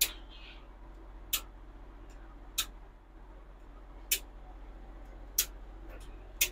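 Circuit breakers in a GE PowerMark Gold breaker panel being snapped on one at a time: six sharp clicks, about one every second and a quarter, over a steady low hum.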